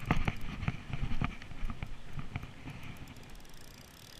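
A quick run of thuds and slaps, about two to three a second, fading out about two and a half seconds in.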